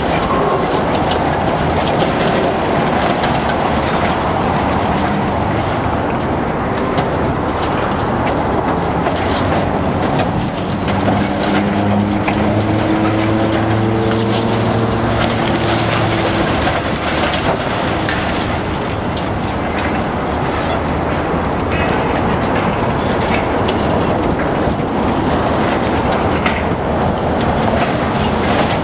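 High-reach demolition excavator breaking up a reinforced-concrete building with its hydraulic jaws: a steady din of crushing concrete and clattering, falling rubble over the diesel engine. For a few seconds near the middle the engine pitch rises as it works under load.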